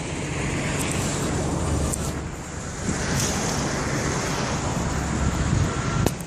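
Shaanxi Y-8's four turboprop engines on landing approach: a steady distant rumble, mixed with wind noise on the microphone.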